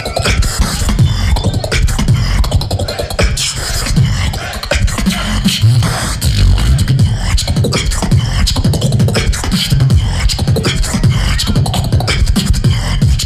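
A person beatboxing a continuous rhythmic pattern with heavy low beats, featuring the cough snare: a snare sound made by coughing and humming at the same time.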